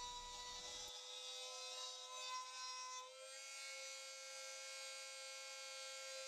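Dremel rotary tool spinning a small end mill that cuts a slot in a brass rod, a steady high whine with several overtones that rises slightly in pitch about three seconds in. The footage runs at double speed, which raises the pitch.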